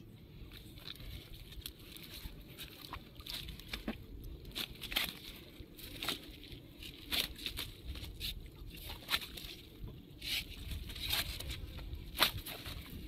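Irregular crackling and rustling clicks of a nylon mesh net bag being handled and tugged around a caught rohu fish, over a low steady rumble.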